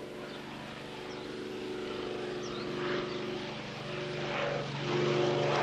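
Light propeller plane's engine running steadily, growing louder.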